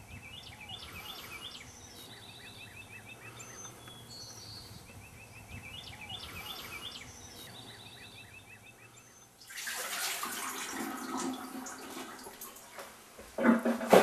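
Birds singing and calling, a repeating pattern of short trills and chirps. About nine and a half seconds in it cuts to a kitchen tap running into a sink as fish are washed, with a loud clunk and clatter near the end.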